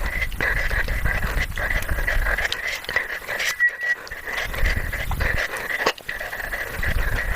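Fast, heavy panting and breathing, as from a mouth burning after the One Chip Challenge's extremely hot chip.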